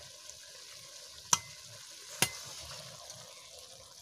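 Curry simmering faintly in a metal kadai, with two sharp metallic clinks about a second apart as the pan is gripped and lifted off the heat.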